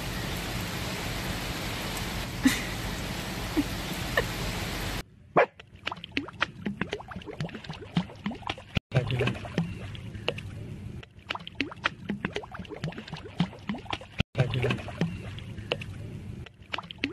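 A steady hiss of background noise for about five seconds, then it cuts to shallow sea water splashing and sloshing around a French bulldog being dipped in it, with many short sharp splashes.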